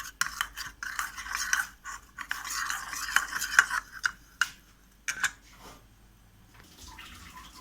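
A spoon stirring cornflour and water into a slurry in a small bowl: quick scraping and clinking strokes against the bowl, which stop about five seconds in after a couple of taps.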